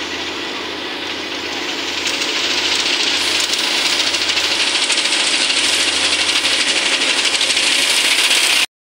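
Rice combine harvester's engine and grain-unloading auger running steadily with a fast rattle, growing louder about two seconds in. The sound cuts out abruptly near the end.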